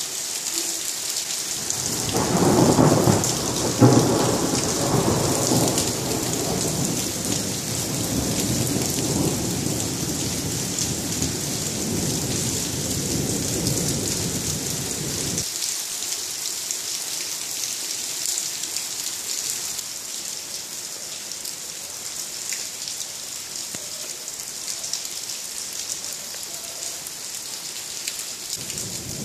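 Thunderstorm: heavy rain hissing steadily while a long roll of thunder rumbles, loudest in the first few seconds with two strong peaks. The thunder stops abruptly about halfway through, and the rain goes on.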